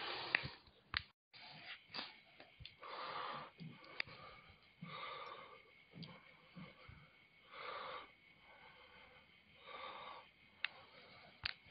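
A person's wheezy breaths, one every two to three seconds, with a few sharp clicks in between.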